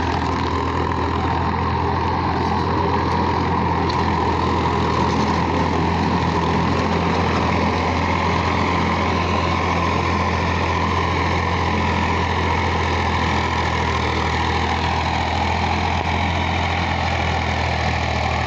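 Powertrac 445 tractor's diesel engine running steadily at constant speed while driving a rotavator through the soil.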